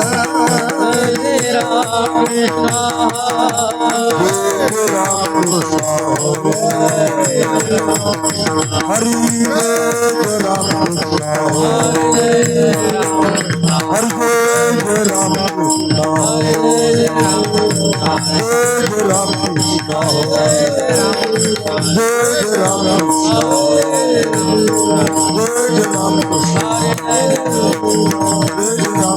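Bhajan music: hand drums and jingling small percussion keep a fast, steady rhythm under held drone tones and a gliding melody line.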